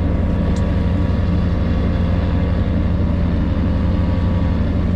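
A fishing boat's engine running steadily, a low, even hum with no change in pitch.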